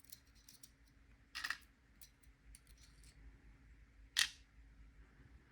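Small metal lock parts from a disassembled Abloy Exec disc-detainer cylinder clicking as they are handled and set down: a few faint ticks and two sharper clicks, about a second and a half in and about four seconds in.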